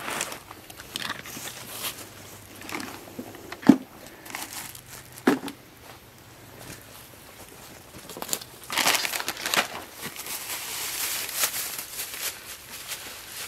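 Soft-sided cooler being opened and rummaged through: two sharp knocks about four and five seconds in, then a plastic grocery bag crinkling and rustling as it is handled.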